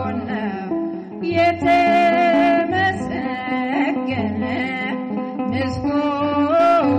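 Ethiopian Orthodox mezmur: a woman singing a hymn melody over instrumental accompaniment.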